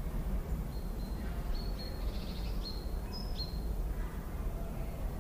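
Small birds chirping several times, short high notes with a few quick downward slides, over a steady low background rumble.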